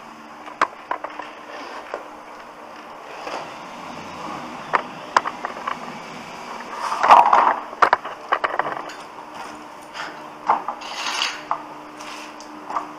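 Hand tools clicking, tapping and scraping against floor tile, with a longer, louder scrape about seven seconds in and another around eleven seconds.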